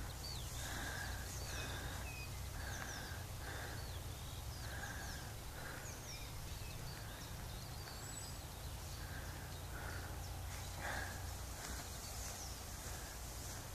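Wild birds calling across open farmland: a repeated mid-pitched call recurring about once or twice a second, mixed with many short, high, falling chirps from small songbirds, over a steady low rumble of wind.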